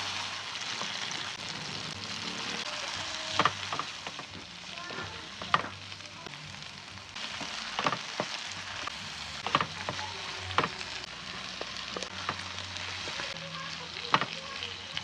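Eggs and vegetables sizzling in hot oil in a frying pan, with a utensil knocking and scraping against the pan every few seconds as the food is stirred.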